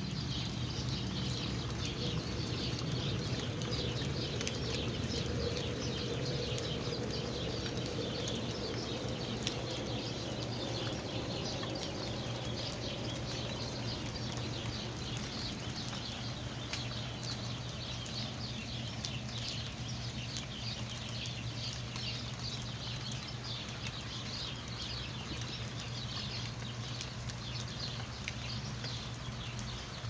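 Many small birds chirping together in a dense, continuous chorus, with scattered faint ticks over a steady low hum.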